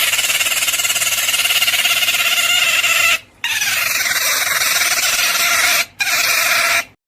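Beaver vocalising: a loud, steady, high-pitched whine with a rough, noisy edge, running in three long stretches with short breaks about three seconds in and near six seconds.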